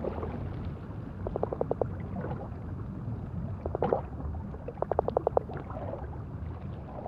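Underwater ambience: a steady low rumble of water, with two quick trains of short pulsed clicks, about a second and about five seconds in, and a single louder burst in between.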